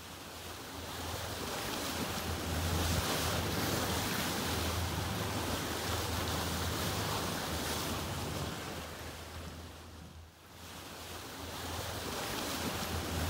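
Steady rushing noise of wind with a low hum beneath, fading down about ten seconds in and building again.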